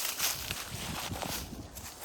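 Footsteps of a person walking downhill on a mountain path, a quick run of steps over steady outdoor hiss.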